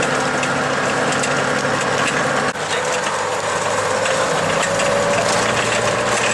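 Old logging truck's engine running on the road, with a steady mechanical rattle over it. About two and a half seconds in the sound breaks for an instant and the engine note drops lower.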